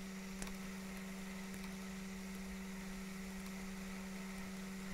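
Steady low electrical hum with a faint hiss behind it, and a single faint click about half a second in.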